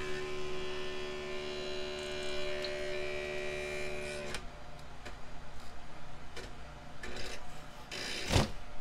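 Tevo Tarantula 3D printer giving a steady, many-toned electrical whine that cuts off suddenly about four seconds in. A few faint clicks follow, and a short loud thump comes near the end.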